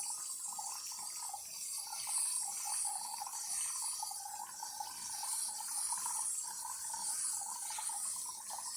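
DeLonghi Eletta's milk-carafe frothing system running on water instead of milk: a steady steam hiss with the water spluttering through the frothing spout into the cup. It is drawing and frothing again after clogged internal hoses were cleared in a descaling tune-up.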